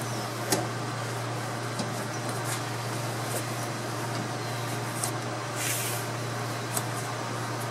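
Scattered light taps and a brief scrape from a headliner board being pushed and shifted against the truck cab's roof, over a steady low hum.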